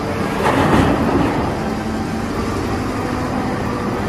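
Caterpillar 992G wheel loader's diesel engine running steadily while it tips a bucketful of dirt into a dump truck, with a louder rumble of the load pouring into the truck bed about half a second to a second in.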